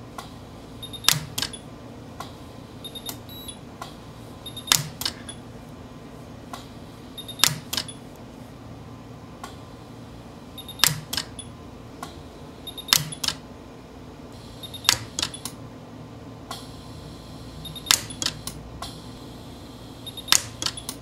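Orion pulse arc dental welder firing onto a cobalt-chrome dental bridge: sharp snapping cracks, often two in quick succession, repeating every two to three seconds. Each group is preceded by a brief faint high tone, over a low steady hum.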